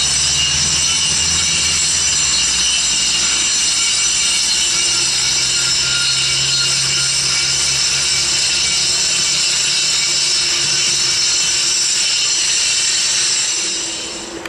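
A power tool cutting steadily with a high-pitched whine, over a low train rumble that dies away about three quarters in. The cutting fades out near the end.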